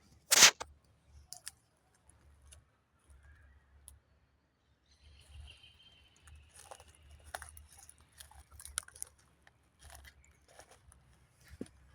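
A sharp, loud rustling knock about half a second in, then scattered crunching and crackling. A thin high whistle, slightly falling, is held for about two seconds in the middle.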